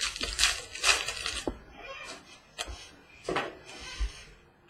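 Trading cards being handled and flipped through: papery sliding rustles for about the first second and a half, then a few light clicks and taps.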